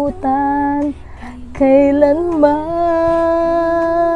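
A woman singing a Tagalog birthday song: a short sung phrase, a brief pause about a second in, then a long held note through the rest.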